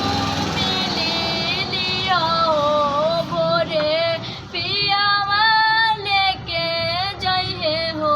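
A high-pitched voice singing a melody, with long held notes that bend and waver in pitch, breaking briefly between phrases.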